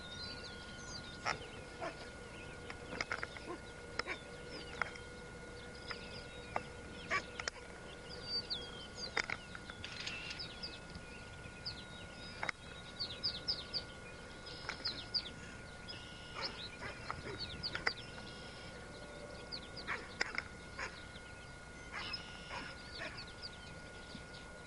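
Scattered short, high-pitched yips and barks from dogs harassing bison at a distance. They come in irregular clusters of several calls at a time, many dropping in pitch, over a faint steady whine.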